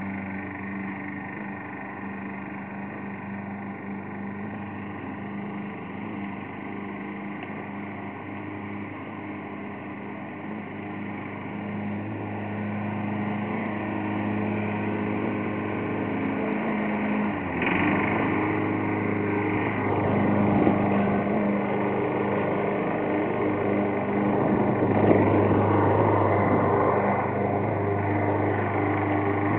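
Walk-behind lawn mower's small engine running steadily, its hum growing louder from about twelve seconds in, with rougher, noisier stretches near eighteen and twenty-five seconds.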